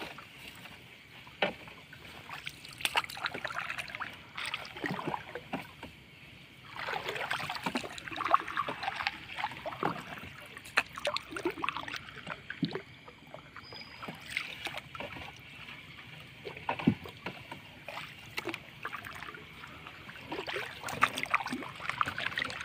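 Sardine net being hauled by hand over the side of a small boat: water streaming and dripping off the mesh, with irregular splashes and small knocks against the hull.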